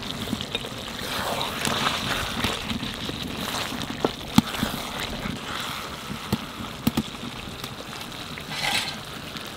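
Flat metal spatula stirring thick chicken curry in a metal pot: a soft wet hiss of the simmering gravy, with a few sharp knocks and scrapes of the spatula against the pot about halfway through.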